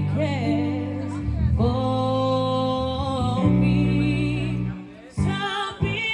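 A woman singing live into a microphone with runs and held notes, over sustained chords on an electronic keyboard. The music thins out briefly about five seconds in, then picks up again.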